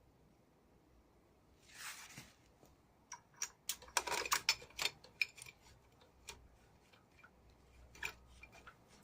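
Light metallic clicks and clinks of tools and parts being handled, with a short rubbing swish about two seconds in and a quick cluster of clicks in the middle.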